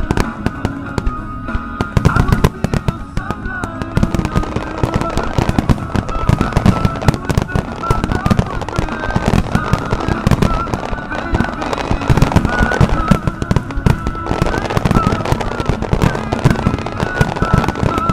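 Starmine fireworks barrage: aerial shells bursting in rapid succession, with dense overlapping bangs from about two seconds in. Music with a melody plays alongside.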